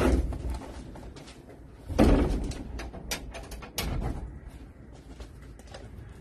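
Greenhouse door being pulled shut: two heavy knocks about two seconds apart, then a few lighter clicks and knocks.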